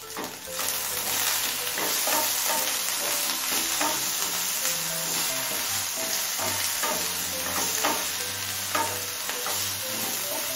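Okra frying and sizzling in hot mustard oil in a nonstick frying pan, stirred and tossed with a spatula. The sizzle swells about half a second in and holds steady, with many short scraping knocks of the spatula against the pan.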